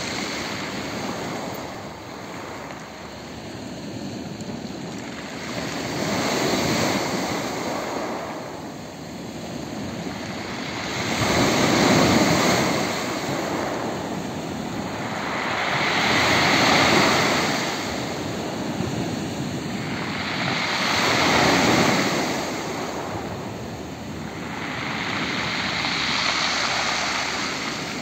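Sea waves breaking and washing up over a pebble beach, the surf noise swelling and fading about every five seconds, five times in all.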